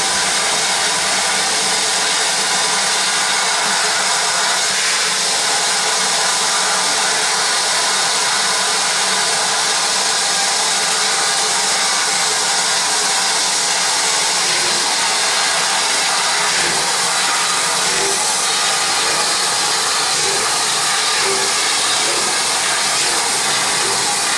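Steady, loud hiss of escaping steam from a rebuilt Bulleid Battle of Britain class Pacific steam locomotive, 34053, as it stands and then starts to move off near the end.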